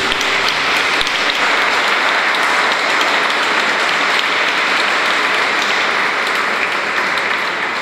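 Audience applauding, a dense, steady clapping that starts as the closing music ends.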